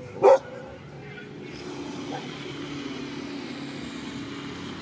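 A dog barks once, sharply, just after the start. About a second and a half in, a steady low engine hum of a motor vehicle sets in and carries on.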